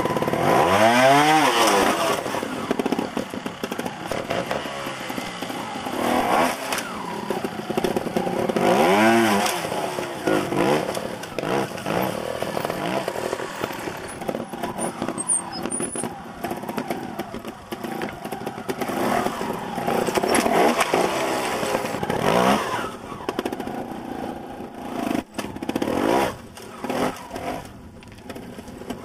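Two-stroke trial motorcycle engine blipped in sharp throttle bursts, the pitch jumping up and falling back several times over a low running between them, as the bike climbs over rock steps.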